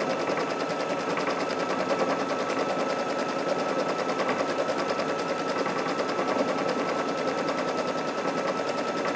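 Brother Luminaire embroidery machine stitching a quilting design in the hoop, running steadily with a rapid, even needle clatter and a thin steady whine. It is sewing straight stitches, so it runs quickly.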